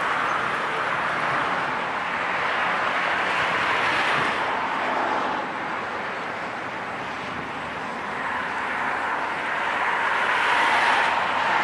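Road traffic passing close by: tyre and engine noise from vehicles swells and fades, with one pass peaking about four seconds in and a louder one near the end.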